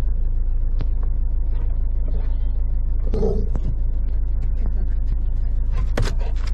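Motorhome engine idling while the vehicle stands still, a steady low rumble heard from inside the cab. A brief call comes about three seconds in, and a couple of sharp clicks near the end.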